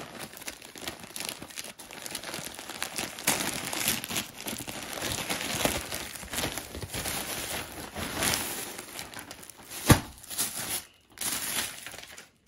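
Yellow plastic mailer bag crinkling as it is torn open by hand, with the printed wrapping around folded clothes rustling as they are pulled out. A single sharp snap sounds about ten seconds in.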